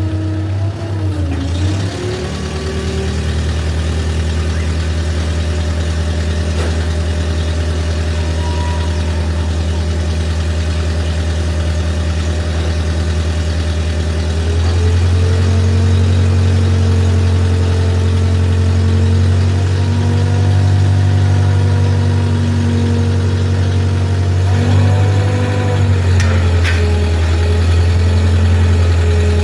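Diesel engine of heavy construction machinery running steadily. Its pitch dips about two seconds in, then it rises and gets louder about halfway through as it takes on more throttle. It dips briefly near the end and recovers.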